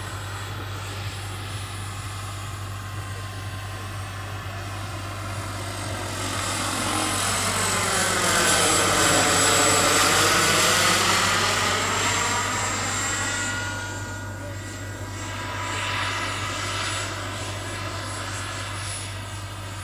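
Turbine-powered scale model of an SA-315B Lama helicopter in flight, its turbine whine and rotor sound growing louder to a peak in the middle as it passes overhead, then fading as it flies away. As it passes there is a swooshing sweep in tone, falling and then rising again.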